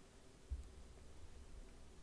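Near silence: faint room tone, with one soft low thump about a quarter of the way in followed by a faint low rumble.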